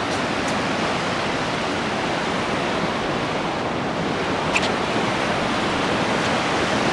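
Steady rush of fast-flowing river water and a waterfall below a dam spillway, an even noise with no pauses.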